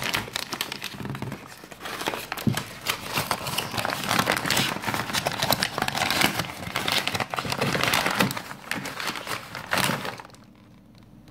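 Yellow courier mailer crinkling and rustling as it is handled and opened by hand: a dense run of crackles that stops about ten seconds in.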